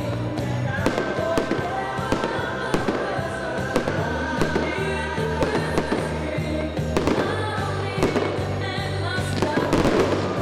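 Fireworks going off, with many irregular bangs in quick succession, over music with a steady bass line.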